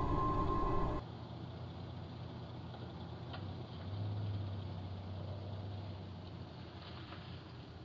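Music cuts off about a second in, giving way to a steady low engine hum from a motor vehicle that swells about four seconds in and then eases, with a couple of faint clicks.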